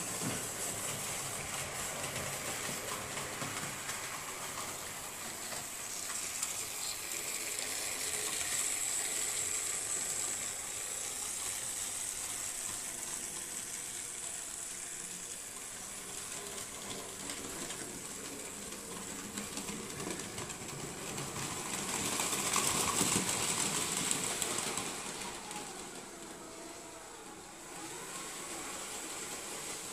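Märklin H0 model trains running on the layout's metal track: a steady whir of the small electric motors and the hiss of wheels rolling over the rails, swelling twice as a train passes close, about a third of the way in and again most of the way through.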